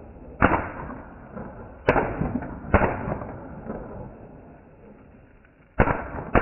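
Consumer firework battery (cake) firing its shots: about five sharp bangs at uneven intervals, each trailing off in an echo, with a long lull before the last two.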